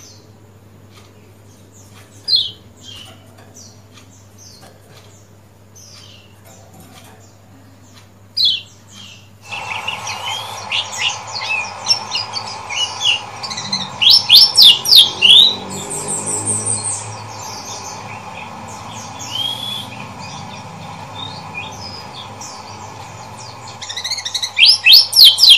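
Caged kecial kuning white-eye calling "ciak ciak". At first it gives a few single sharp chirps. From about ten seconds in it runs into quick strings of high chirps and trills, loudest near the middle and again at the end, over a steady background hum.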